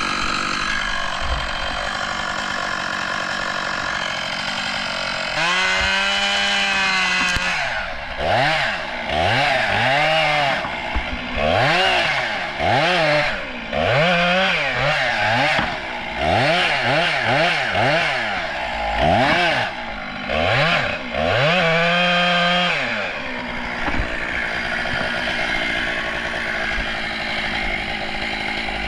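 STIHL 661 two-stroke chainsaw running at high revs, steady for the first few seconds. Then its engine pitch rises and falls over and over, about once a second, for most of the rest, before settling again near the end.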